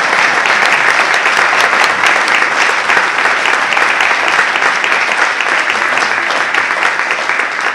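Audience applauding: a dense patter of many hands clapping, thinning a little near the end.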